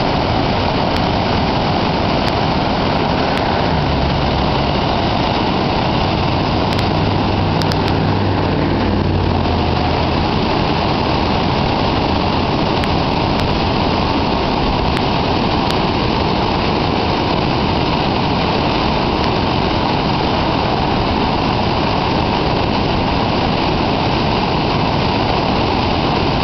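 Steady, loud rush of a flooded river pouring over whitewater rapids and a small rocky falls.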